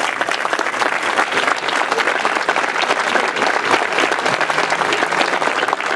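Seated audience applauding: dense, even clapping from many hands.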